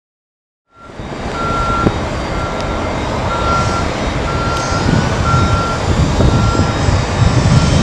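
A vehicle's reversing alarm beeping steadily, about once a second, over a loud low rumble of running machinery; the sound cuts in just under a second in.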